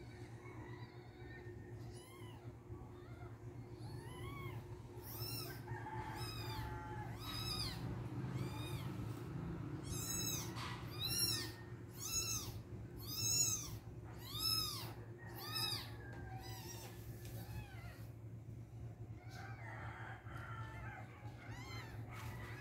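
Newborn kitten mewing: a run of short, high, rising-and-falling calls about once a second, loudest in the middle and stopping several seconds before the end.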